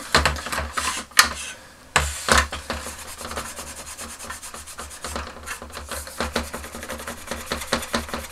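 Kitchen towel dampened with lighter fluid rubbed briskly back and forth over a toy jet's hard plastic, wiping off scuff marks, in quick repeated strokes. A sharp knock about a second in and a brief pause before the rubbing picks up again.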